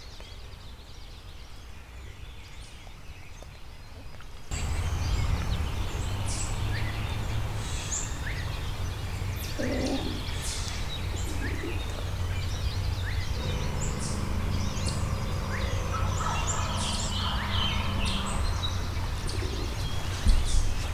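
Wild turkey gobbling amid many songbirds chirping.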